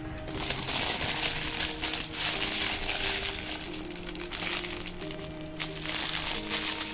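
Thin polythene bag crinkling and rustling as it is gathered and twisted around jalebi batter, over background music with steady held notes.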